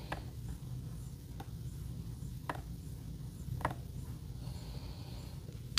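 Ceramic stone of a Work Sharp Precision Adjust guided sharpener, wetted with soapy water, stroked along a knife edge: a few light scrapes about once a second over a low steady hum.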